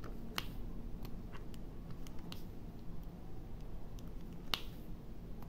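Diamond painting drill pen pressing resin drills onto the sticky canvas: small irregular clicks and taps, the loudest about four and a half seconds in.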